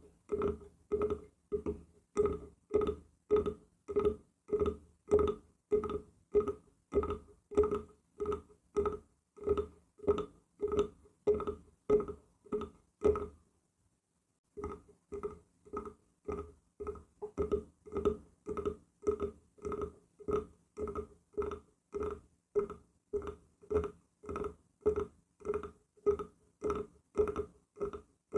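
Steady tapping on wood, about two knocks a second, each knock ringing briefly with a clear pitch. The tapping stops for about a second halfway through, then resumes at the same pace.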